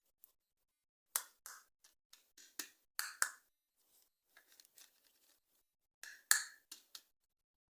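Hands handling plastic toy parts and packaging: a string of sharp clicks and short scraping rustles in two clusters, the loudest click just after six seconds in.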